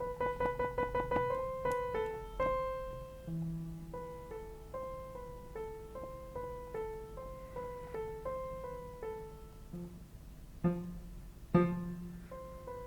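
Sampled upright piano from Ableton Live 11's Upright Piano pack, played one note at a time: a run of quick repeated notes at the start, then a slow melody stepping up and down. A few low bass notes sound under it, the two loudest near the end.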